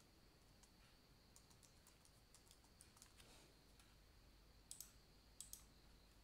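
Faint computer keyboard typing, a password being keyed in, followed by a couple of louder mouse clicks near the end.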